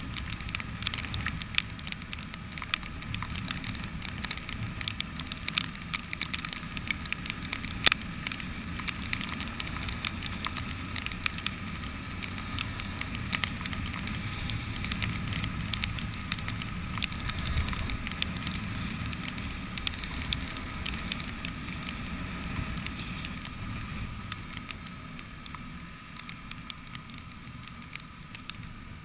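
Motorcycle riding on a wet road in the rain: a steady low rumble of engine and road noise, peppered with frequent sharp clicks and patter from raindrops hitting the camera. It gets somewhat quieter near the end.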